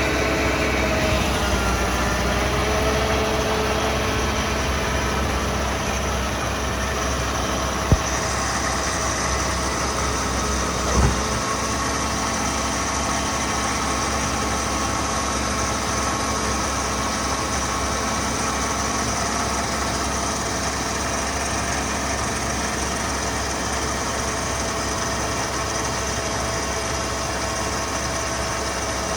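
Engine running steadily at an even speed. There is a sharp click about eight seconds in and a brief thump around eleven seconds, after which the deepest rumble drops away.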